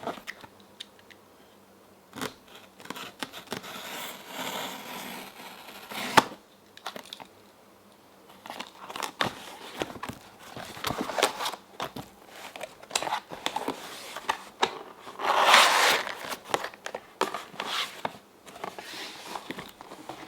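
Shipping package being torn open by hand: irregular tearing and crinkling of the packaging, mixed with clicks and handling knocks. A sharp knock comes about six seconds in, and a longer, louder rip comes about three-quarters of the way through.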